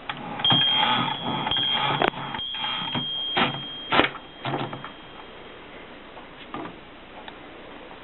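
Erika 5 portable typewriter being worked: a run of clacking mechanical strokes for the first half, with a thin high ringing tone over them, then only a few faint clicks.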